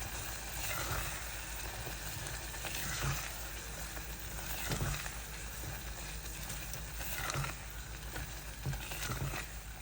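Shrimp in ground coconut masala paste sizzling as it fries in a pan, with a spoon stirring and scraping now and then.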